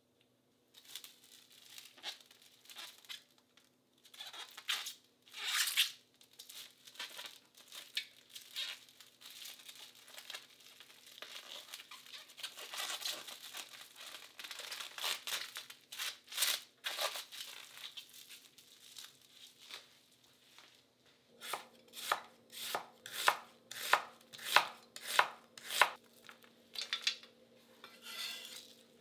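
Plastic cling film crinkling as it is gathered and wrapped around a pile of shredded vegetables. About two-thirds through, a kitchen knife slices an onion on a cutting board, each cut a sharp knock on the board at about two a second.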